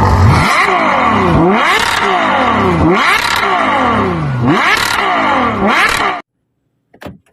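Loud engine-like sound whose pitch repeatedly dips and rises, about every one and a half seconds, then cuts off abruptly about six seconds in.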